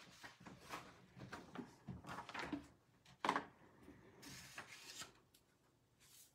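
Faint handling of paper and a clear acrylic stamp block on a tabletop: soft rustling and sliding of a sheet of grid paper, with a light tap about three seconds in.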